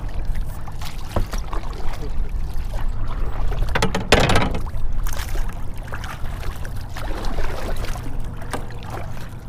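Kayak being hand-paddled: the paddle dips and splashes while water sloshes against the hull, over a steady low rumble, with one louder burst about four seconds in.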